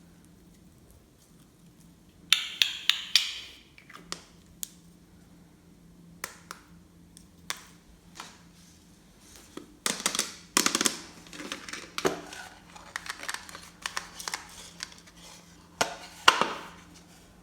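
Hands squishing and pressing glossy slime: clusters of sticky clicks, crackles and small air-bubble pops, coming in bursts about two seconds in, through the middle from about ten seconds, and once more near the end.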